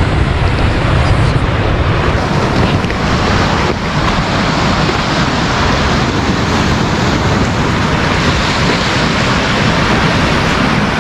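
Steady wind blowing across the microphone over the wash of waves on the shore.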